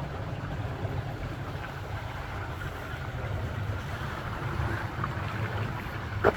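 Steady rush of a small stream, with a low wind rumble on the microphone. A brief sharp sound stands out just before the end.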